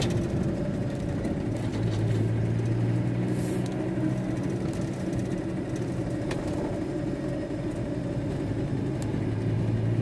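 VW T4 Transporter van running on the road, heard from inside the cab. About a second and a half in, a steady low hum with a few overtones comes in, which the driver takes for the power steering pump complaining because its fluid is low.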